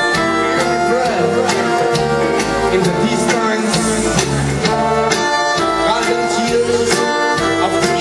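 A live band playing: brass, accordion, electric bass and drum kit over a steady beat.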